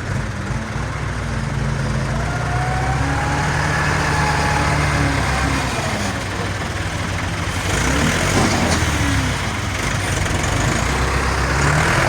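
A large vehicle or machine engine running, its pitch rising and falling as it revs up and down.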